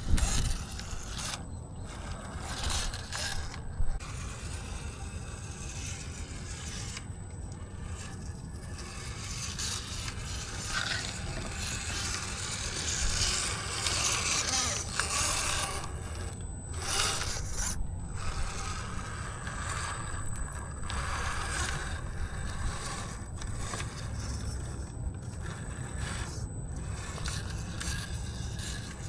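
Axial Capra RC rock crawler driving over rough ground: irregular scraping and grinding from its tyres and drivetrain, with a faint steady high whine that comes and goes, over a constant low rumble.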